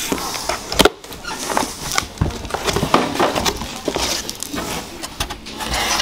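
Cardboard box and its packing being handled by hand: flaps, paper sheets and a molded pulp insert rustling, crackling and scraping, with scattered clicks and a sharp snap a little under a second in.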